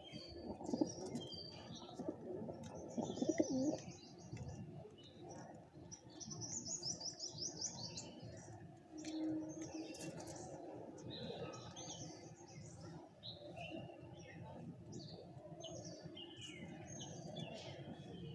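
Pigeons cooing in a low warble, with small birds chirping quickly and high over them throughout; a few louder bursts come in the first four seconds.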